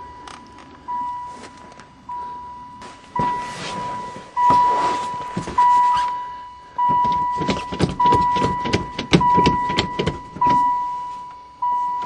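A van's dashboard warning chime dinging over and over, a single tone struck about once every 1.2 seconds and fading between strikes, which shows the freshly connected battery is powering the van. Over the middle stretch, a run of rattling and clicking handling noise.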